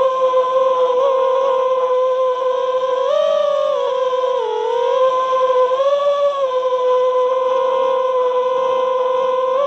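FPV racing quadcopter's brushless motors spinning at idle, armed on the ground: a steady whine whose pitch wavers briefly a few times.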